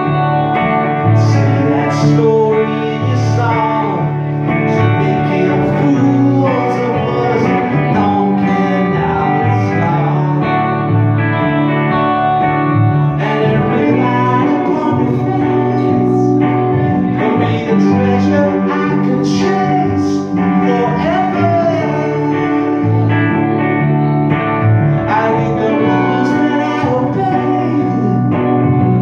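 Live band: a man singing over several electric guitars, playing continuously.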